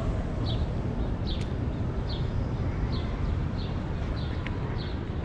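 Outdoor ambience with a steady low rumble and a short high chirp repeating about once a second.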